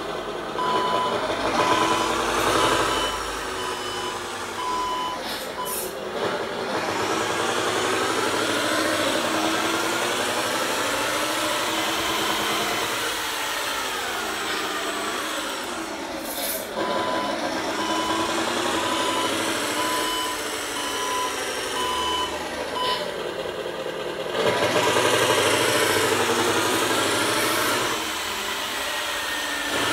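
Simulated truck diesel engine sound played by an ESP32 RC sound controller through a small loudspeaker, its pitch rising and falling as the truck speeds up and slows, with the smooth shifts of a software-simulated Allison automatic transmission with torque converter. A reversing beeper beeps in two runs, near the start and in the middle, and the engine is loudest near the end at full throttle.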